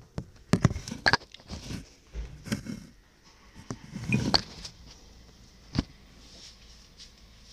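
Handling noise of a phone being moved in the hand: irregular knocks, clicks and rubbing right on the microphone, with a last sharp click near six seconds.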